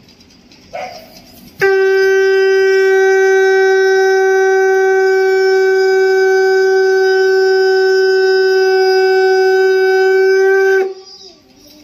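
Conch shell (shankh) blown in one long, steady note lasting about nine seconds, starting about a second and a half in and stopping shortly before the end.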